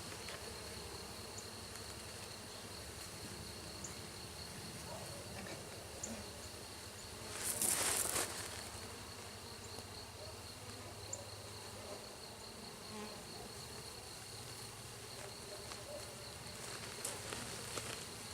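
Many honeybees buzzing steadily around a hive just after a package of bees has been installed. A brief rustling noise comes about halfway through.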